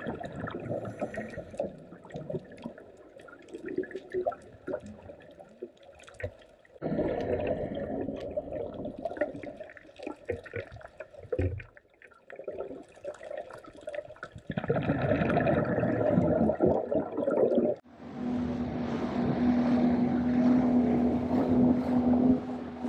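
A scuba diver's exhaled bubbles in bursts of a few seconds each, spaced like breaths and heard through an underwater camera housing, with small clicks between them. About 18 seconds in, this gives way to a motorboat running on the surface: a steady engine hum under wind and water noise.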